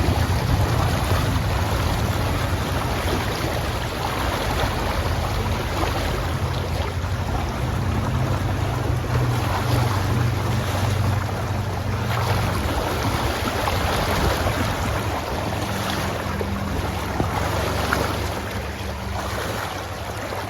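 Fast river current rushing steadily at close range, a loud even rush of water.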